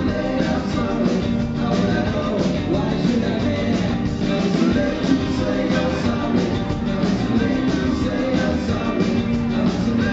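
Live rock band playing on a venue PA, with electric guitars, a steady drum beat and singing.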